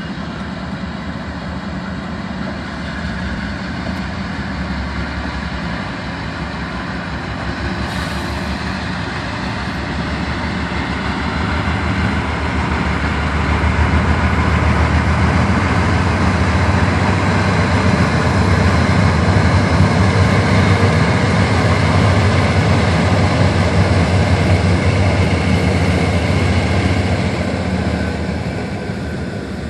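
Norfolk Southern freight train's diesel locomotives pulling slowly past as the train gets under way, with a steady deep engine drone. The drone builds to its loudest in the middle as the lead units pass and eases near the end as the freight cars follow.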